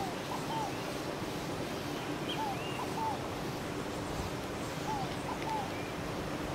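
Birds calling: short falling two-note calls repeated every couple of seconds, with fainter higher chirps from other birds, over a faint steady low hum.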